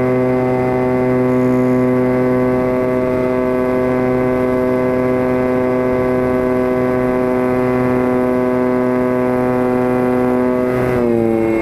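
E-flite Apprentice RC plane's electric motor and propeller, heard close up from the onboard camera, running with a steady whining tone as the plane climbs. Near the end the pitch drops as the throttle is eased back.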